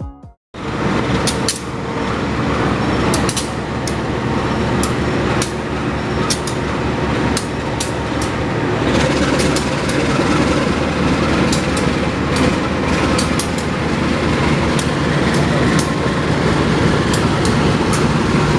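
Logawa passenger train running, heard from inside a carriage: a steady rumble and rushing noise with frequent sharp clacks from the wheels and couplings.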